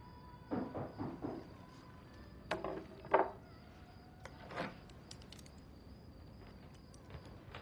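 A few knocks on a wooden door, the loudest pair about three seconds in, with softer knocks or thuds before and after and a few faint clicks.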